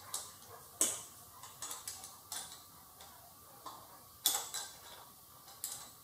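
Irregular light clicks and knocks of hands working at the carburetor, hoses and fittings on a Honda Recon 250 ATV engine, about half a dozen small taps with the sharpest a little past four seconds in.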